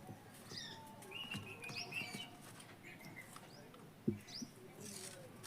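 Faint chirping of small birds, a series of short rising chirps scattered throughout, with a single light knock about four seconds in.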